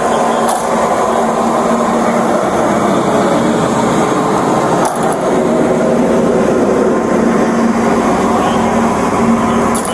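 Steady road traffic noise of vehicles passing, with a constant hum beneath it.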